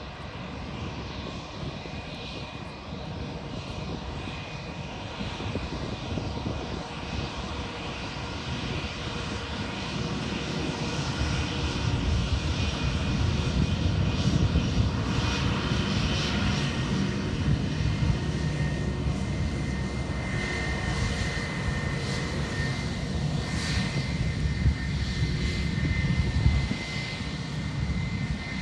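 Airbus A319 airliner's jet engines running, growing steadily louder through the first half, with a high steady whine from the engines coming in about two-thirds of the way through.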